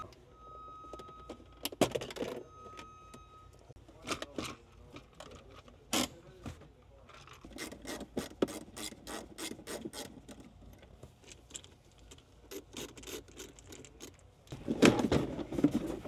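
A car's plastic center console being taken apart with a pick and a screwdriver: scattered clicks, taps and light scraping, with a run of quick clicks in the middle. A steady high beep sounds twice in the first few seconds, and there is a louder spell of rustling and knocking near the end.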